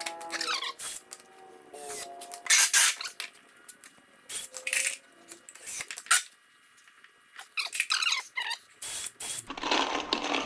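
A cordless drill whirring briefly at the start, then a run of sharp clicks, knocks and rattles as screws and tools are handled.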